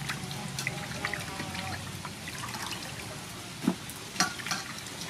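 Hands sloshing and rubbing raw chicken gizzards in a stainless steel bowl of water, with irregular splashes and drips. Two louder splashes come near the end.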